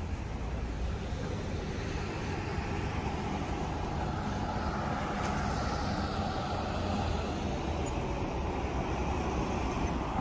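Road traffic: a vehicle passes on the street, its tyre and engine noise swelling about four seconds in and then easing off, over a steady low rumble.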